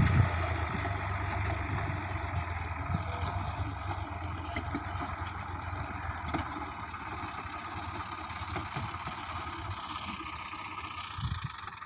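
Tractor engine running steadily at low revs, slowly growing quieter.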